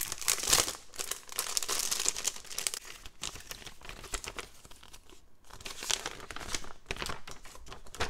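Thin clear plastic bag crinkling as papers are slid out of it, then paper rustling as a folded quick start guide is opened out. The crackling is heaviest in the first three seconds and comes again about six seconds in.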